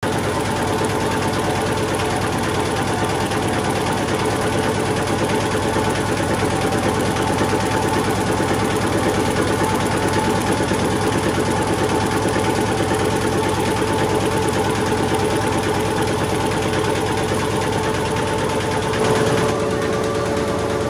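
Somtaş Bag Master S twin-stream paper bag making machine running in automatic production at a 60 m/min line speed, with a steady, fast mechanical clatter and hum. The sound shifts slightly a little before the end.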